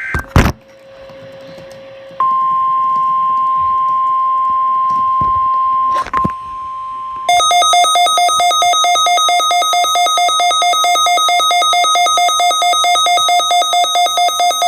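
A short loud burst, then the NOAA Weather Radio warning alarm tone, a steady single tone near 1 kHz, for about four seconds. From about seven seconds in, a Midland WR120 weather radio's own alert alarm beeps rapidly and loudly, set off by the required weekly test.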